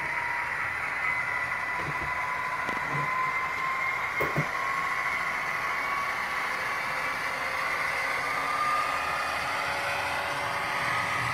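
ESU LokSound decoder in an HO-scale Athearn Genesis GP50 model playing a recorded EMD 16-645F3B diesel prime mover through the model's small speaker: a steady engine drone with a whine whose pitch drifts a little, and a few soft knocks in the first half.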